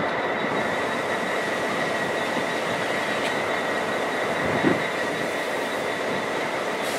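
Irish Rail 201 class diesel locomotive standing at idle: a steady engine rumble with a constant high whine over it. A short thump about two-thirds of the way through.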